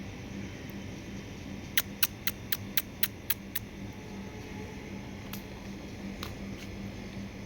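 A quick run of eight sharp clicks, about four a second, starting about two seconds in, with a few fainter single clicks later, over a steady low hum.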